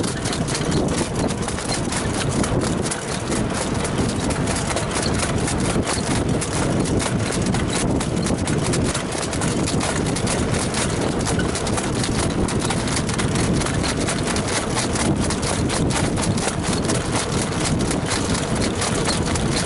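Hoofbeats of a Standardbred trotter on the track, a continuous rapid clip-clop over a steady rushing noise.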